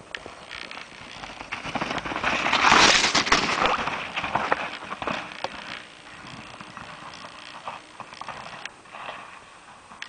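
Mountain bike riding past over snow and leaf-littered ground: the crunching and rattling of tyres and bike swells to a peak about three seconds in and fades, followed by scattered clicks and crunches.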